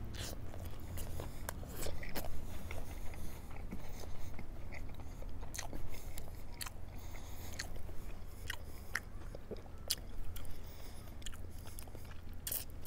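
A person biting into and chewing a mouthful of barbecue burger on a grilled bun, heard as many short, irregular mouth clicks and smacks with some crunch from crispy onions in the filling.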